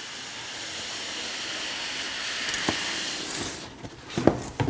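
Cardboard packaging rubbing and sliding as a box is handled during unboxing: a steady hiss that stops about three and a half seconds in, followed by a few light knocks.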